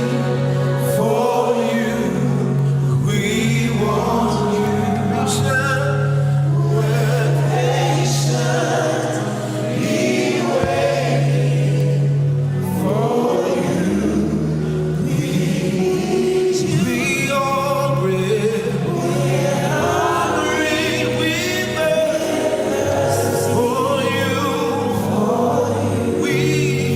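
Gospel worship music: a choir of voices singing over long held low keyboard or bass notes.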